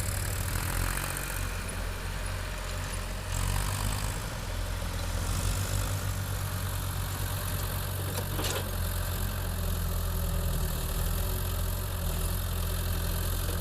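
Hydraulic excavator's diesel engine running steadily with a low, even hum, and a single short knock about eight seconds in.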